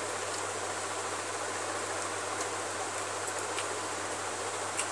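Steady hiss of room noise with a constant low hum underneath, broken by a few faint soft clicks of eating by hand.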